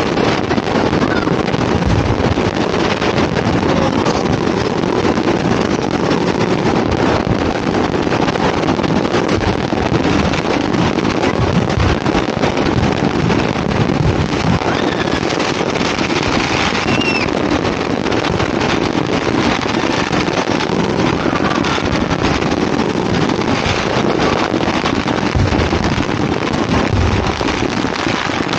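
Dense, steady crackle of many firecrackers going off all around, their pops merging into a continuous din, with wind buffeting the microphone.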